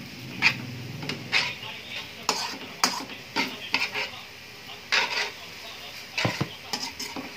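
Metal spatula scraping and knocking against an aluminium wok as egg noodles are stirred and tossed, in short irregular strokes, over a light sizzle from the pan.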